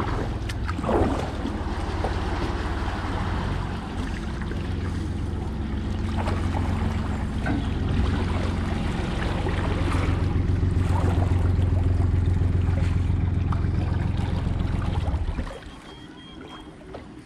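A steady low engine hum with noise over it, cutting out suddenly about fifteen seconds in.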